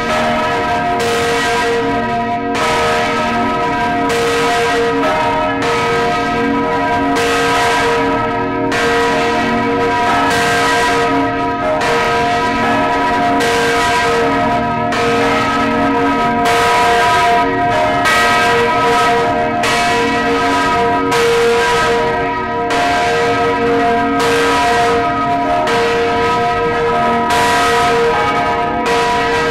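Several large swinging church bells pealing together, heard close up inside the belfry. Their clappers strike about once a second, and the deep tones ring on and overlap between strikes. The bells are rung as a funeral farewell.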